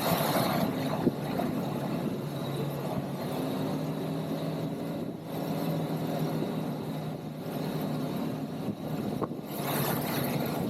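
ATV (quad bike) engine running steadily while riding, a constant engine note over a rushing noise, with brief dips in level about halfway and near the end.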